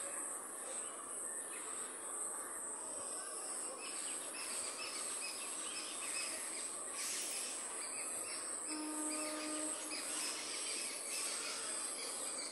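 Steady high-pitched drone of insects such as cicadas or crickets, with faint outdoor background noise. A brief low steady tone sounds for about a second, around nine seconds in.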